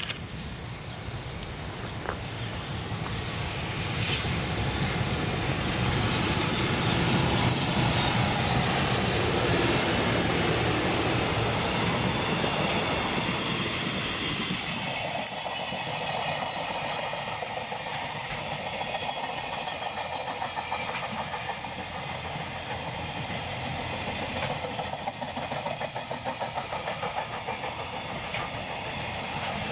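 Electric-locomotive-hauled freight train passing close by: the sound builds over the first ten seconds and drops in pitch as the locomotive goes by, then the wagons roll past with a steady rhythmic clickety-clack over the rail joints.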